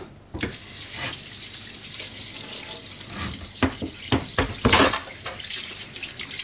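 Kitchen tap running, water splashing onto a plastic cutting board in a stainless steel sink as things are rinsed under it. The water comes on about half a second in, and a few short knocks and clatters come around the middle.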